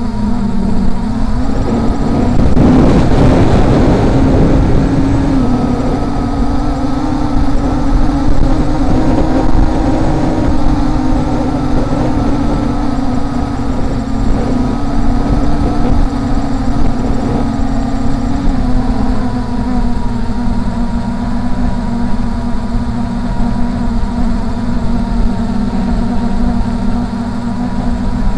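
Brushless quadcopter's motors and propellers running with a steady hum whose pitch drifts up and down with throttle, over heavy wind rumble on the onboard microphone. A louder rush of wind noise comes about three seconds in.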